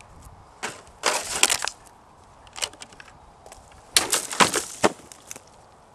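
A CAS/Hanwei Tinker longsword, still unsharpened, slashing through a water-filled plastic jug about four seconds in: a sudden loud burst of ruptured plastic and splashing water lasting about a second. A similar loud, noisy burst comes about a second in, before the cut.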